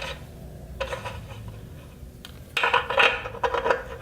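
Metal hardware clinking and rattling as a replacement pallet knob is worked onto its threaded bolt on a screen-printing pallet bracket. A few clicks come about a second in, then a busier run of clinks and rattles near the end.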